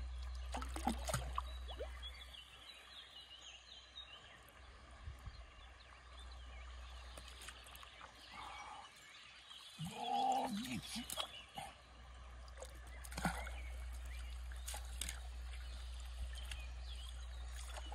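Shallow river water splashing and trickling as a keepnet holding barbel is handled in the water, with small scattered splashes and knocks. A short pitched sound about ten seconds in.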